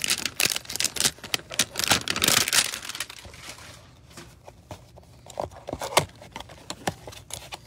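Cardboard hanger box of Panini Mosaic basketball cards being handled and opened: dense rustling and crinkling of cardboard and paper for the first three seconds, then sparser clicks and scrapes as the card stack slides out.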